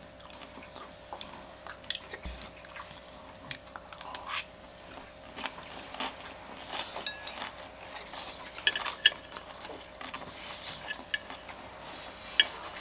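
Close-up eating sounds: chewing and biting with scattered small clicks and taps. A pair of sharper clicks comes about nine seconds in, and another near the end.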